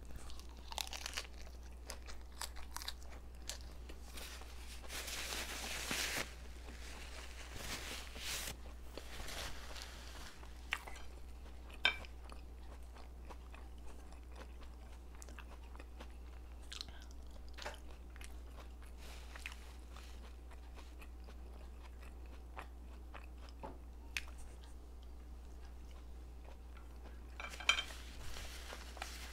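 Close-up chewing and crunching of food in the mouth, starting with a bite into a crisp lettuce wrap; the crunching is densest about five to six seconds in, then thins to scattered smacks and clicks, with another short burst of crunching near the end. A steady low hum runs underneath.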